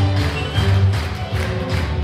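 Dance music with a heavy bass and a steady fast beat, about three beats a second.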